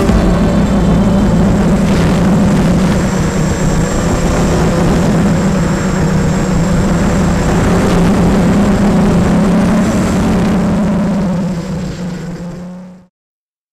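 Brushless motors and propellers of a ZMR250 racing quadcopter in flight, heard through its on-board camera: a loud, steady hum. It fades over the last couple of seconds and then cuts off.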